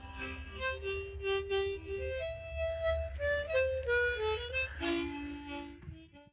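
An old, large harmonica with low notes plays the closing phrase of a polka melody. It ends on a held two-note chord about five seconds in that fades away.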